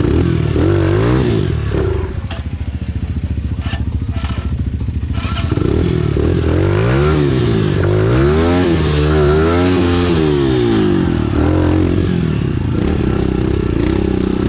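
Enduro motorcycle engine running under changing throttle, its pitch rising and falling again and again as it revs up and eases off, with the revs dropping back for a few seconds about two seconds in.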